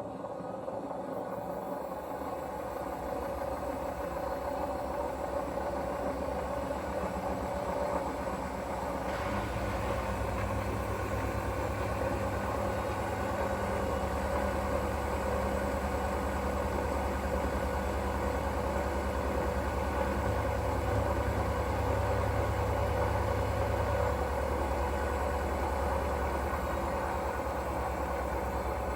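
Hoover washing machine running with a terrible steady mechanical hum and rumble that grows louder over the first ten seconds, with a deeper low rumble coming in about nine seconds in. The owner suspects a failing drum bearing or the motor.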